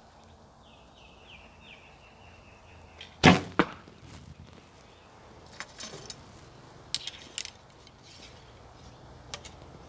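A recurve bow shot: the sharp crack of the string released, then a second, lighter knock about a third of a second later as the arrow strikes the target. A few light clicks follow later.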